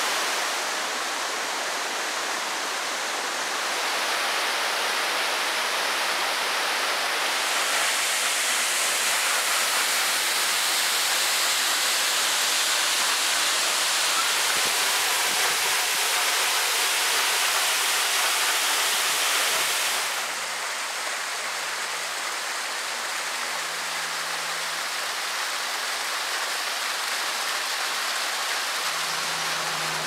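Water of waterfalls and rocky cascades rushing and splashing, a steady full hiss of falling water. It shifts in tone at cuts about four, eight and twenty seconds in, and is a little softer after the last.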